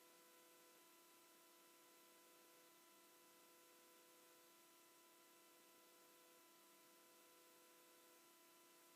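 Near silence: faint steady hiss and electrical hum.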